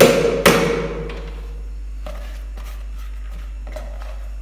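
A plastic container knocked sharply against a frying pan to shake out soaked chana dal: two hard knocks in the first half second, dying away by about a second in, then only a low steady hum with a couple of faint ticks.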